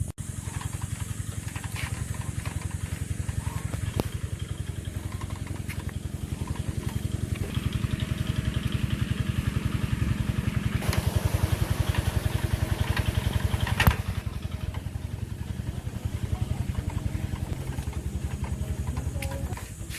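A small engine running steadily with a rapid, even thudding beat, and one sharp click about two-thirds of the way in.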